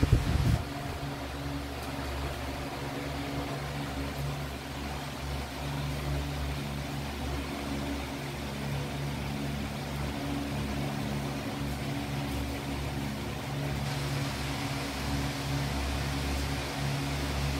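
Steady mechanical hum with several low, level tones, like a small motor or fan running. A couple of sharp knocks come right at the start.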